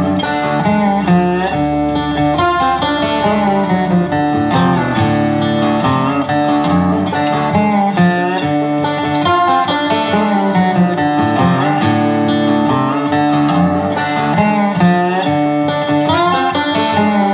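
Instrumental background music with plucked acoustic guitar, playing steadily.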